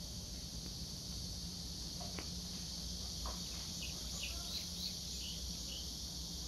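Cicadas buzzing in a steady, high chorus of summer heat, with a few faint short chirps over it in the middle.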